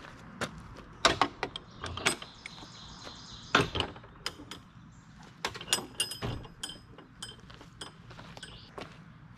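Metal clanks and clicks of a UTV's cargo-bed tailgate being unlatched and lowered, with the latch and support cables rattling. It is a string of sharp knocks, loudest about a second in and again at about three and a half seconds.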